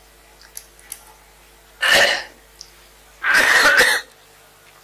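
A person coughing twice: a short cough about two seconds in, then a longer one about a second later.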